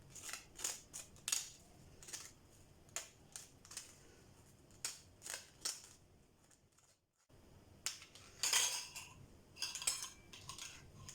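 Utensil scraping and tapping against a strainer and bowl as grated red onion is pressed to squeeze out its juice: a run of short, irregular scrapes and clicks, with a longer scraping stretch past the middle.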